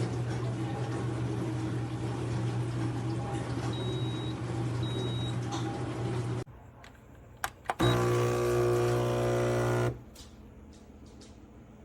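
Neretva 20-bar espresso machine's pump buzzing steadily, then cutting off sharply about six and a half seconds in. After a couple of clicks it buzzes again for about two seconds and stops.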